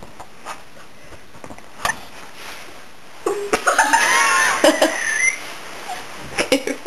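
A young woman laughing in high-pitched, wavering giggles, starting about three seconds in and loudest for about two seconds before tailing off.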